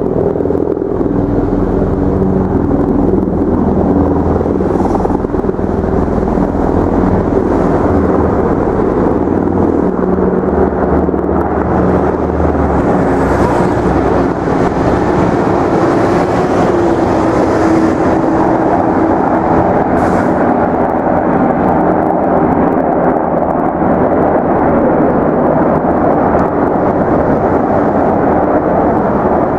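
Loud, steady engine rumble with low droning tones that shift slowly in pitch.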